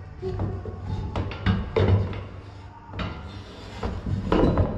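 Hollow knocks and clunks from a plastic cone-bottom tank and its plumbing fittings being handled and shifted in a steel stand, several separate knocks over a few seconds.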